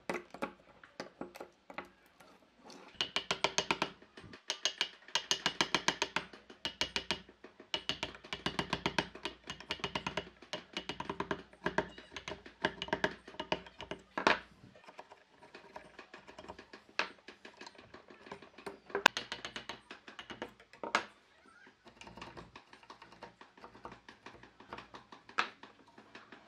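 Chisel cutting into pine: bursts of rapid sharp taps, many a second, then a few sparser single knocks.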